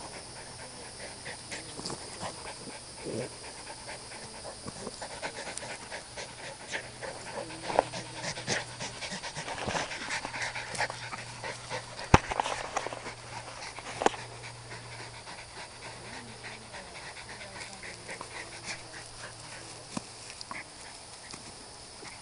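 Jack Russell terriers panting hard close by, with short rustles and scuffs in dry leaves and grass. A single sharp knock about halfway through is the loudest sound.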